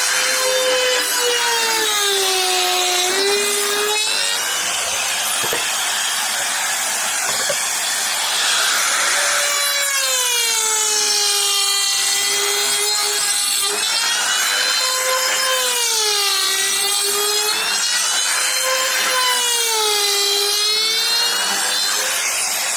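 Electric power tool cutting wood. Its motor whine sags in pitch and recovers again and again, every few seconds, as it bites into the wood, over a steady hiss of cutting.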